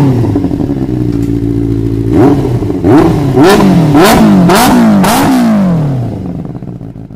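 Benelli TNT 600i's 600cc inline-four, fitted with a Scorpion exhaust, idling steadily and then blipped about six times in quick succession, each rev rising sharply and falling back. After the last blip the note falls away and fades out near the end.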